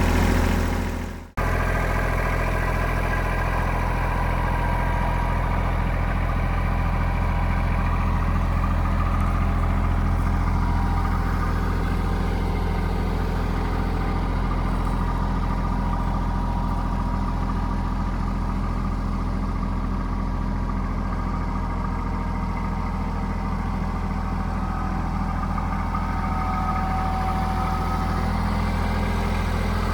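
Engine of farm machinery running steadily at a low idle-like pace, with an even low hum. It cuts out briefly about a second in and then carries on unchanged.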